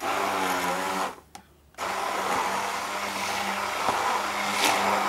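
Braun hand-held stick blender running in a beaker of milk and banana, blending a milkshake: a steady motor hum that cuts out about a second in and starts up again under a second later, then runs on steadily.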